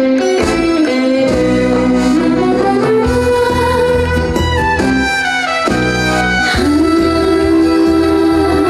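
Instrumental interlude of a Korean trot song, with no singing: a lead instrument plays the melody in long held and sliding notes over a steady bass line.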